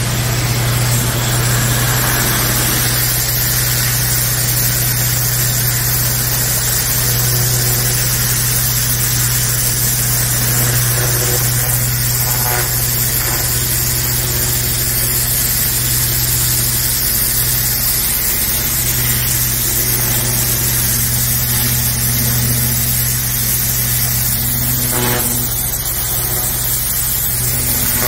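Pressure washer running steadily: a constant low hum from its motor and pump under the hiss of the high-pressure water jet striking concrete.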